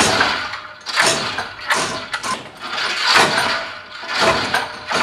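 Drop-test tower running repeated falls of a 100 kg test weight on a rope: a series of loud rushing, clattering bursts about once a second.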